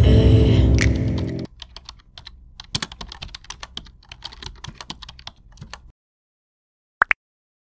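Keyboard typing sound effect: rapid, irregular key clicks for about four seconds, after background music fades out in the first second and a half. Near the end come two brief high rising pips.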